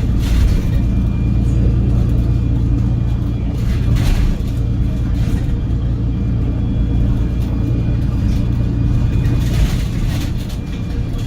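Cummins L9 inline-six diesel engine and Voith automatic gearbox of an Enviro500 MMC double-decker bus, heard from inside the moving bus as a steady low drone. Brief rattly noises come through now and then, and the low drone eases off near the end.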